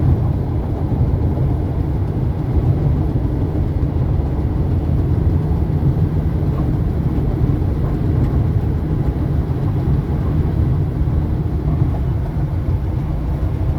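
Steady low rumble of a car driving down the highway, heard from inside the cabin: constant tyre and engine noise with no change in pace.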